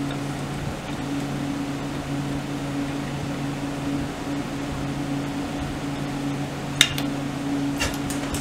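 A steady low mechanical hum, with two sharp clicks near the end as motorcycle gearbox parts are handled and fitted into the casing.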